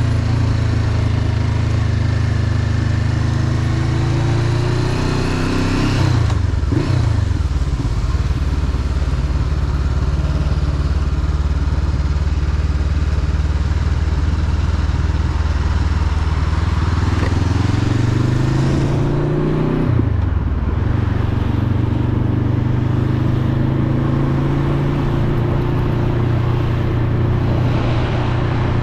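Motorcycle engine under way, its pitch climbing as it accelerates and dropping sharply at a gear change about six seconds in, then holding steady while cruising before climbing and shifting again near twenty seconds. A steady rush of wind and road noise runs under the engine.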